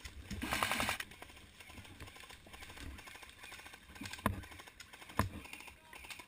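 An airsoft gun firing a short rapid burst in the first second, then two single sharp shots a few seconds later.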